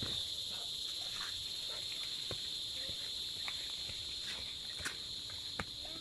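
Steady high-pitched drone of insects calling, with scattered sharp snaps and crackles of dry corn husks being torn off the ears.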